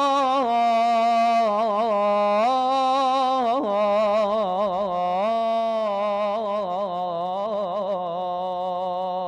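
A man singing a mawwal unaccompanied: a long wordless melisma of held notes and rapid ornamental trills, the pitch stepping down and back up several times.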